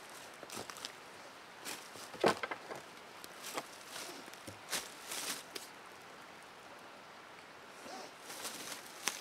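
Footsteps crunching and rustling in dry fallen leaves, irregular and uneven, with a louder knock about two seconds in as wood is handled.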